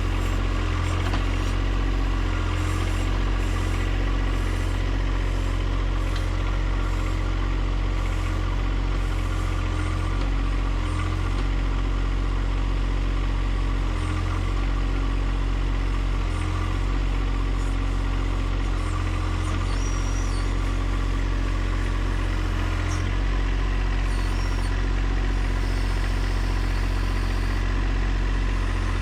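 Compact tractor's diesel engine running steadily, its note dipping and recovering every couple of seconds as it takes and sheds load.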